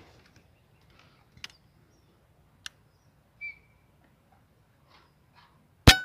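A single air rifle shot near the end: one sharp crack followed by a short ringing tone that fades. Before it come a few faint clicks and a short high chirp.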